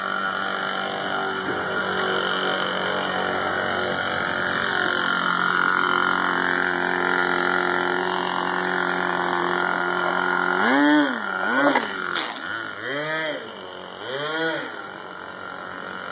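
Small nitro glow engine of an RC airboat, turning its air propeller, idling steadily. About eleven seconds in it is revved up and back down four times in quick succession.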